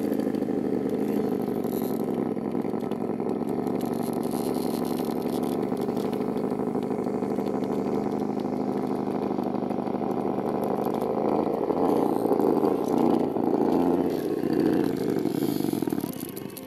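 Electric motor and geartrain of a Traxxas TRX-4 RC rock crawler whining steadily as it crawls over a dirt bank, getting louder about two-thirds of the way through.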